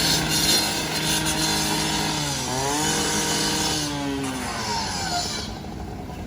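Gas-powered two-stroke power saw running at high revs. About two and a half seconds in, its pitch drops sharply and then climbs back, as a saw does when it bogs under load and recovers. The cutting hiss stops near the end while the engine keeps running.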